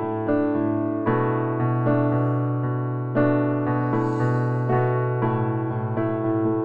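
Background piano music: a slow melody of sustained notes over a held low note.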